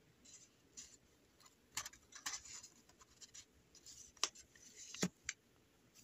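Paper handling: faint rustling of card envelopes and paper tags being shuffled by hand, with several sharp clicks and taps, the loudest two near the end.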